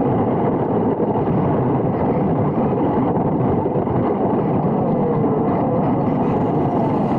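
Radio-controlled toy pickup truck driving: its small electric motor and gears whine with a pitch that drifts up and down with speed, over a steady rumble from the tyres and chassis.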